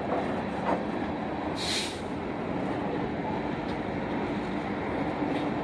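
Freight train of tank cars rolling past: steady rolling noise of steel wheels on the rails, with a brief hiss about two seconds in.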